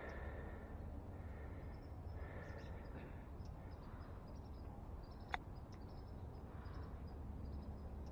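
Steady low outdoor rumble, as of wind and road noise on a bicycle ride, with a few faint high calls in the first three seconds and one sharp, short chirp falling in pitch about five seconds in.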